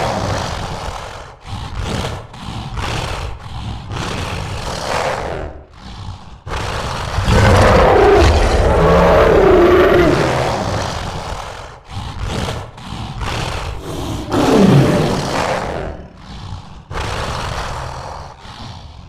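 Movie creature sound effects: a string of separate monster growls and roars with short gaps between them, the longest and loudest roar lasting about four seconds near the middle.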